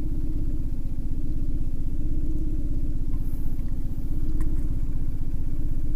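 An engine running at a steady speed, a low even rumble with a fast regular pulse.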